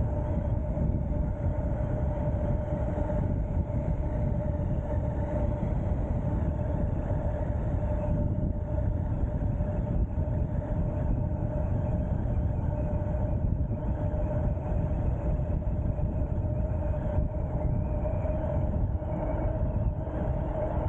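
Ariel Rider X-Class 52V electric bike ridden at about 33 mph: steady wind rush on the microphone with a steady high whine.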